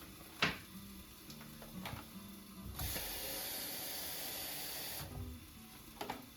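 Kitchen cooking noises: a sharp click or knock, a lighter one, then about two seconds of steady hiss that stops suddenly, followed by a couple more light clicks.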